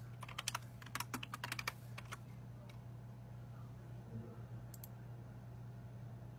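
Computer keyboard typing: a quick run of keystrokes in the first two seconds, then a few single clicks, over a low steady hum.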